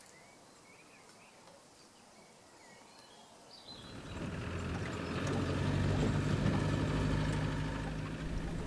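Faint birdsong chirping for the first few seconds. Then, about four seconds in, a Land Rover Series II engine comes in and runs with a steady low drone as the vehicle drives along.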